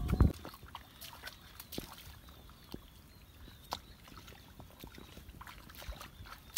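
Small splashes and squelches of hands and feet in shallow muddy water, with a brief louder slosh at the start and scattered light clicks and ticks after it.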